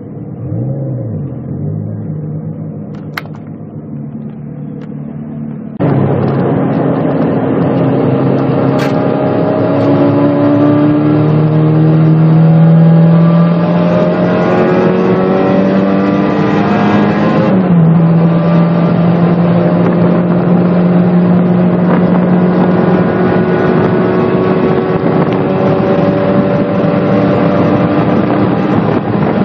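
Turbocharged 1.6-litre four-cylinder engine of a 1990 Mazda Miata, heard from inside the cabin. It first runs at low speed with one short rev. About six seconds in it is suddenly much louder, pulling hard with its pitch climbing slowly. A sudden drop in pitch at a gearshift comes a little past halfway, and then it climbs again.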